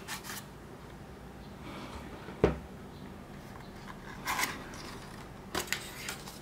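Hands handling stiff cardboard Blu-ray packaging: card sliding and rustling against card, with a single sharp knock about two and a half seconds in, the loudest sound, and a few light taps near the end.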